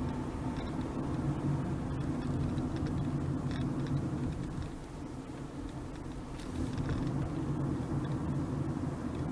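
A Honda Freed Hybrid on the move: a steady low drone with road and tyre noise, dipping a little in level about halfway through.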